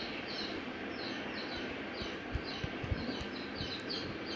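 Small birds chirping: short, high, falling chirps repeating several times a second over a steady hiss, with a few soft low knocks about halfway through.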